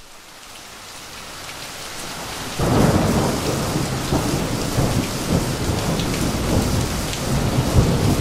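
Steady rain fading in from silence and growing louder; about two and a half seconds in, a deep thunder rumble comes in suddenly and rolls on under the rain.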